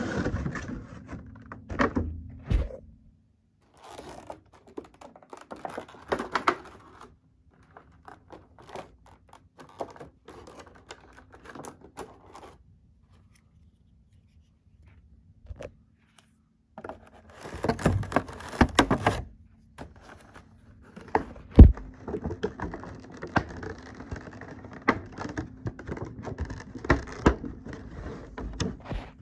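Handling of a boxed prize figure's packaging: irregular rustling and crinkling of clear plastic with clicks and taps, coming in bursts with a quiet gap near the middle, and one sharp knock about two-thirds of the way through.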